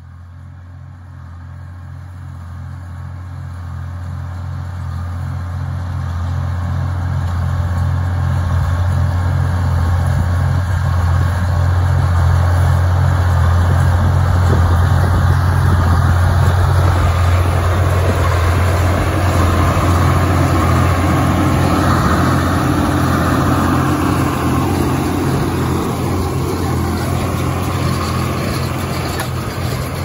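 Oliver 1755 tractor engine running steadily as it pulls a New Holland 268 small square baler through hay, growing louder over the first ten seconds or so as it approaches and passes close.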